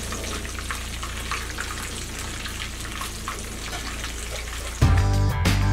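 Crumbed fish fillets sizzling and crackling in shallow oil in a frying pan. Music with a heavy bass beat cuts in suddenly near the end.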